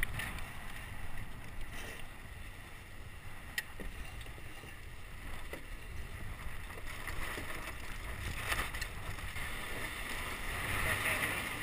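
Wind rumbling on the microphone aboard a small sailboat, with a few light clicks and knocks as lines are hauled on deck.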